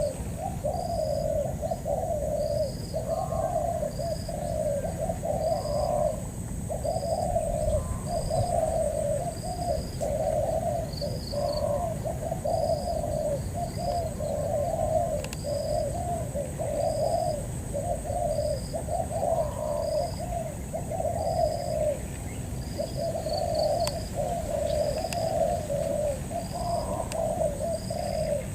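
Spotted doves cooing over and over in low, repeated phrases that barely pause. A short, high chirp repeats about once a second, and a thin, steady high whine runs underneath.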